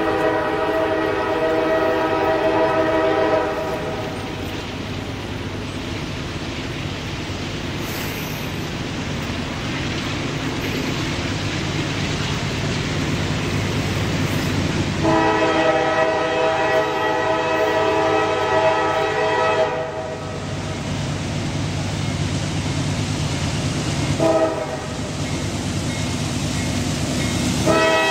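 A CSX freight locomotive's air horn sounds the grade-crossing signal as the train approaches: two long blasts of a multi-note chord, a short blast, then a long one beginning near the end. A low rumble from the oncoming train grows louder between the blasts.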